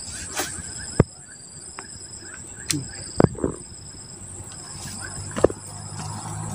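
Insects trilling: a steady high-pitched drone with shorter calls repeating over it. A few sharp clicks come about one, three and five and a half seconds in.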